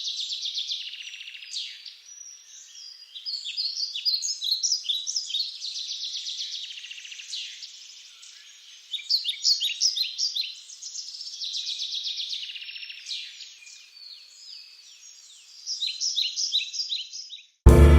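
Songbirds chirping and trilling in quick, repeated phrases that rise and fall in waves. Music cuts in abruptly just before the end.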